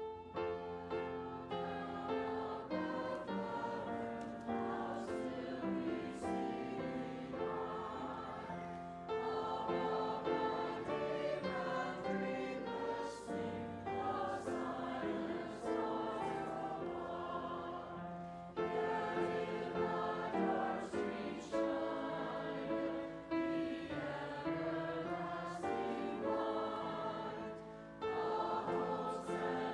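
Choir singing a sacred song, in long phrases with brief breaks between them.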